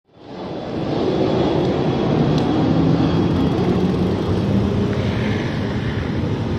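Steady city traffic noise with engine hum, fading in over the first second.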